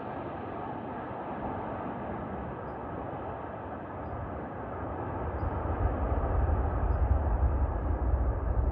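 Jet engine noise of a landing Boeing 787-10 airliner: a steady rushing sound, with a deep rumble building from about five seconds in.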